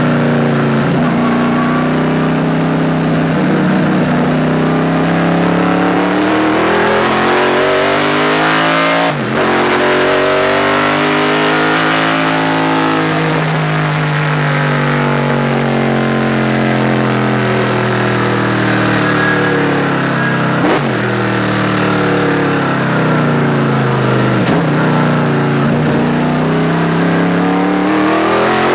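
Race car's all-forged small-block Chevrolet V8 at full throttle, heard from inside the cockpit. Its pitch climbs and drops again and again as the car accelerates, shifts gear and slows for corners, with one long climb in the middle that then falls off slowly.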